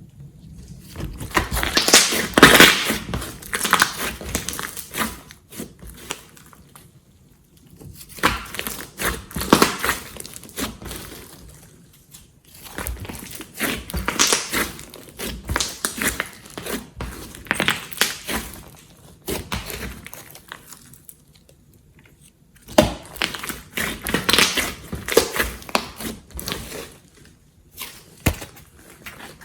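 Glossy slime being squeezed and worked by hand, giving wet crackling and popping clicks. They come in bursts of a few seconds, with short pauses between.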